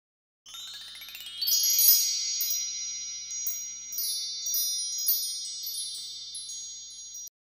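Chimes sound effect over a title card: a quick rising run of bell-like tones, then high tones ringing on with further strikes, cutting off suddenly near the end.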